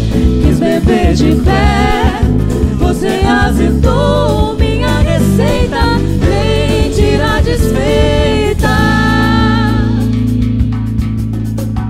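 Live samba-style band with a man and a woman singing together over nylon-string guitar and drum kit. The voices end on a long held note about nine seconds in, and the band plays on.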